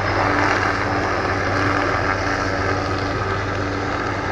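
Helicopter hovering with a suspended aerial saw, a string of spinning buzz-saw blades trimming trees along power lines, making a loud steady drone of rotor, engine and saws.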